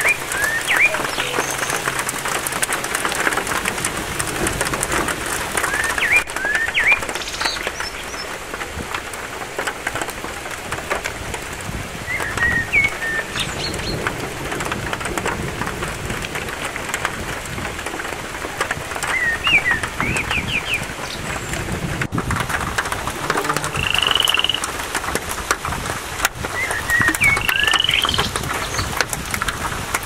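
Steady rain falling on pine forest foliage and needle litter, a dense even patter of drops. Birds call over it every few seconds in short rising whistles and chirps.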